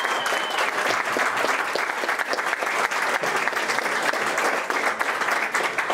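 Audience applauding: dense, steady clapping from a small crowd.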